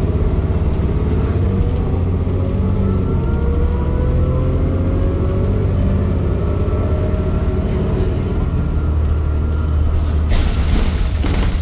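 Cummins ISL9 diesel engine and Allison transmission of a 2012 New Flyer D40LFR city bus, heard from inside the cabin while driving: a deep steady rumble with a whine that rises slowly in pitch as the bus gathers speed. Near the end comes a burst of hiss lasting about a second.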